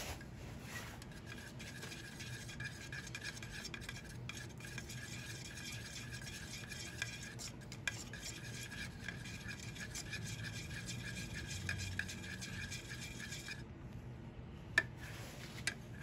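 A wooden stick stirring oil-based polyurethane in a metal can, scraping and swishing steadily, then stopping near the end. A sharp click follows shortly after.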